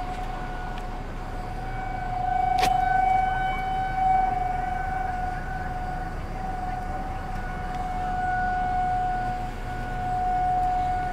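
Outdoor tornado warning siren sounding one steady tone, swelling and fading a little in loudness, with a single sharp click about two and a half seconds in.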